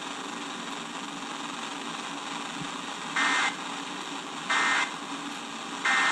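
Steady radio hiss, then three short electronic data bursts of the Emergency Alert System end-of-message signal, starting about three seconds in and repeating roughly every 1.3 seconds. This marks the close of the alert broadcast.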